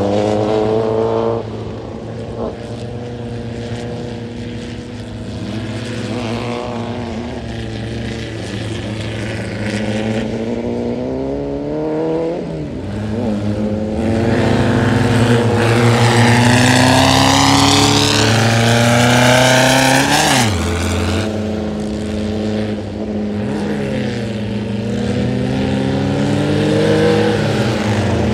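Volkswagen-engined tubular off-road buggies racing, more than one engine heard at once, each revving up in pitch and dropping back again and again as the drivers shift and lift. It is loudest for several seconds in the middle, with a rush of noise as a buggy passes close.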